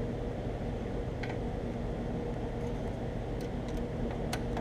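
Screwdriver working the hard drive's mounting screws out of a desktop drive cage: a few faint light clicks, mostly in the second half, over a steady low hum.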